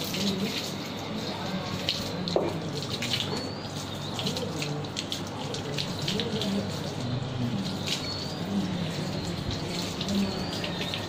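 Water running from a hose and splashing onto a wet concrete floor while a Rottweiler is washed, with small splashes and drips throughout.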